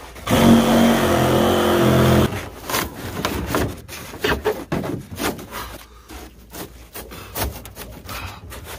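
A cordless saw runs for about two seconds, cutting into a jon boat bench's pour-foam core, then stops. The rest is irregular crunching, scraping and snapping as the foam core is broken apart and pulled out by hand.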